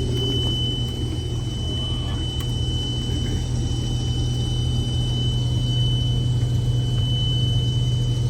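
Case IH 2166 combine running under harvest load, its engine and threshing machinery a steady rumble, with a steady high-pitched tone sounding over it throughout.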